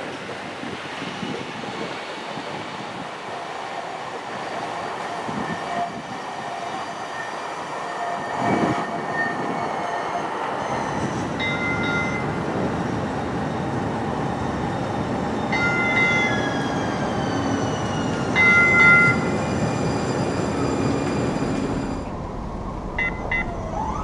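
Atlanta Streetcar (Siemens S70 light-rail car) running on street track, with electric-motor whine sliding down in pitch over a steady rumble. Its horn sounds three short times, about four and three seconds apart, and near the end a whine rises in pitch as a car starts off.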